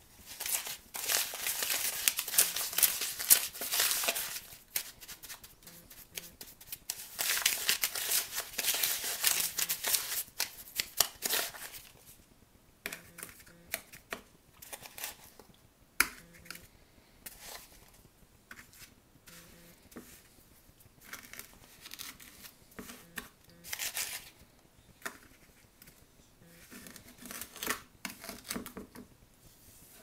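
Metal spoon stirring and scraping a damp, gritty borax and washing-soda mix in a plastic tub, in two long spells of scraping. Then quieter short scrapes, taps and a sharp click as the mix is scooped and pressed into a plastic ice cube tray.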